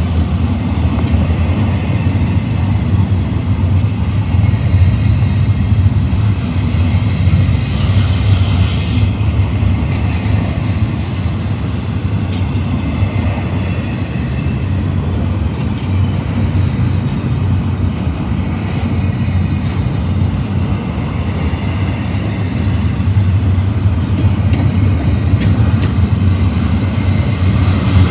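BNSF double-stack intermodal train's cars rolling past close by: a steady, loud rumble of steel wheels on rail. A high hiss over it fades about nine seconds in and comes back near the end.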